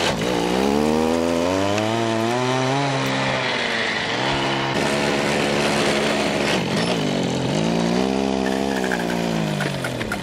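Small go-kart engine revving up and easing off several times, its pitch rising and falling as the kart pulls away.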